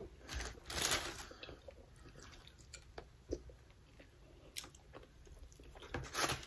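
People chewing and biting into fried chicken wings close to the microphone: scattered crunches and wet, squishy mouth sounds, the loudest about a second in.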